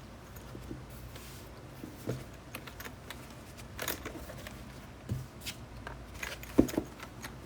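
Light handling sounds of a keyboard and its packaging on a desk: scattered clicks and taps, a brief rustle about a second in, and one sharper knock near the end.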